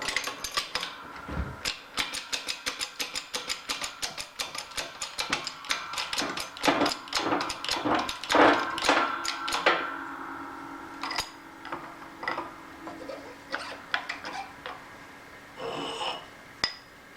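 A rapid run of sharp metallic clicks with a slight ring, about six a second, that stops about ten seconds in. A few separate clicks and taps follow.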